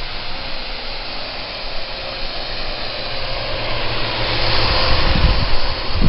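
Parrot AR.Drone quadcopter's four rotors whirring as it throttles up, growing louder over the second half, with low rumbling gusts near the end.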